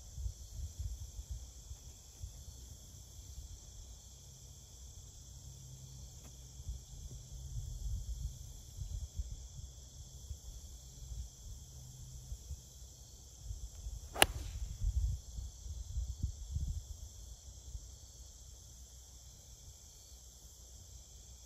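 A single sharp crack of a 4-iron striking a golf ball about two-thirds of the way through. It is a cleanly flushed strike. Crickets chirr steadily throughout over a low rumble.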